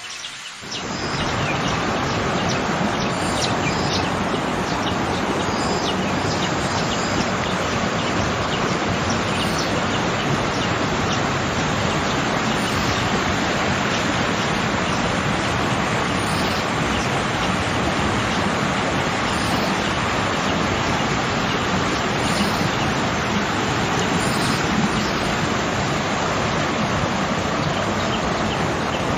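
Waterfall: water rushing in a steady, even roar of noise that swells up within the first second and then holds level.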